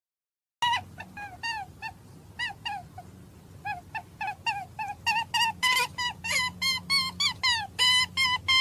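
A small animal squeaking: short high calls that drop in pitch, repeated after a moment of silence, coming quicker and louder from about halfway through.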